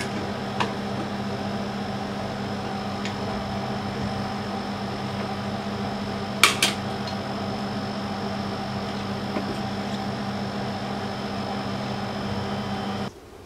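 Electric melting furnace running: a steady fan hum with a thin high whine above it. Two sharp clicks come about six and a half seconds in.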